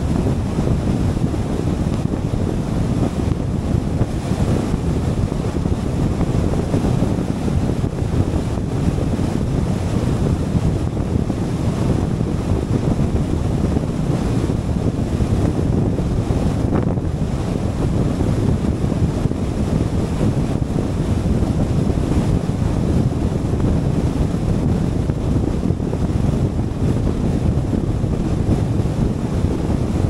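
Steady rumble of wind and tyre noise from a car driving at freeway speed, with wind buffeting the microphone.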